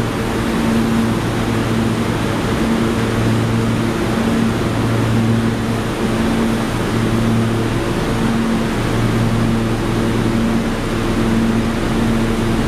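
Kawasaki R143 subway car standing in the station with its air conditioning and auxiliary equipment running: a steady whir with a low hum that drops out and returns every second or so.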